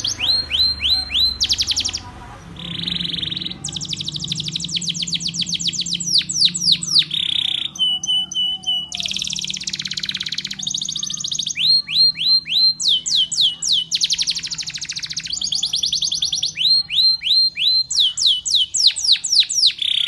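Canary singing a long, loud song of rolls: fast runs of repeated notes, mostly quick falling sweeps, with one short steady whistled note about halfway through.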